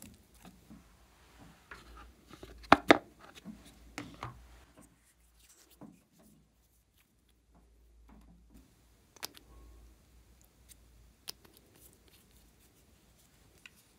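Small scissors snipping and clicking as crayon is cut into pieces over a bowl of slime, loudest as two sharp snips about three seconds in. Later come a few isolated clicks as a small plastic nail polish bottle is handled.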